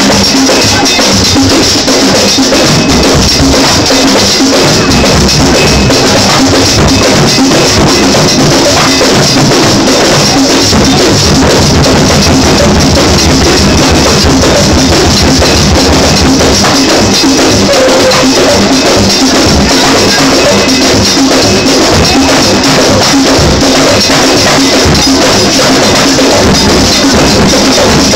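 Live church praise music: hand drums beaten in a fast, dense rhythm with a keyboard, very loud throughout.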